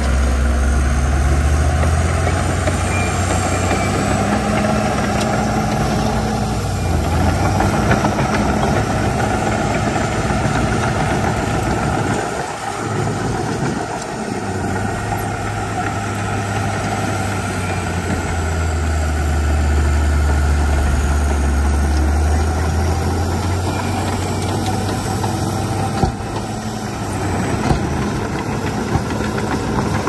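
Heavy diesel engine of earthmoving machinery running, its low drone shifting in pitch with load. It dips briefly about halfway through, and a couple of short knocks come near the end.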